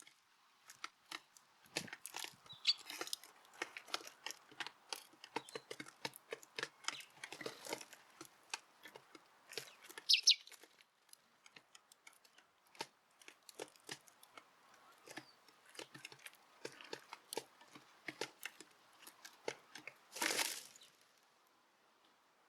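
Tree sparrows pecking at seed in a feeder tray: many quick, irregular small clicks and taps, with a short high chirp about ten seconds in and a brief whoosh near the end.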